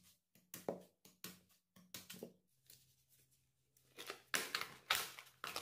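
Faint, scattered clicks and rustles of ingredients being handled on a worktop, a few at a time, growing denser near the end.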